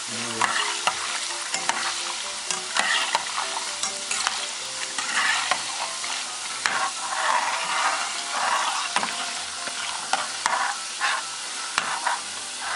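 Chak-chak dough strips deep-frying in a saucepan of hot oil, sizzling steadily, while a metal slotted spoon stirs them. The spoon scrapes through the pieces and clicks against the pot many times.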